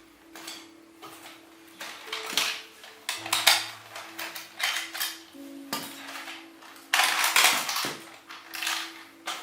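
A hard plastic toy being handled, with repeated clattering and scraping noises. Faint background music plays underneath.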